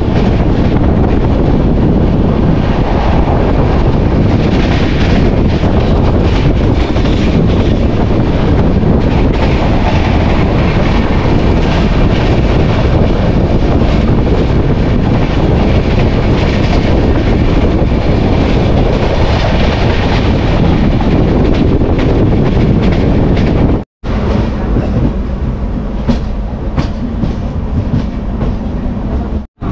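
Express train's coaches running at speed: loud, steady running noise with the wheels clattering over rail joints and points, heard from an open coach door. It is somewhat quieter for the last few seconds.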